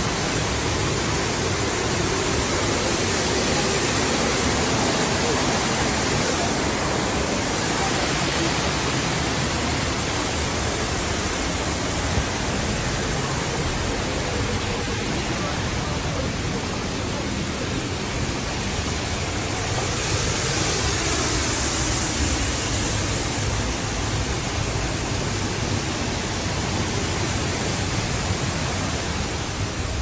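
Steady rush of the Düden waterfall's falling water, heard from the rock cave behind the falls.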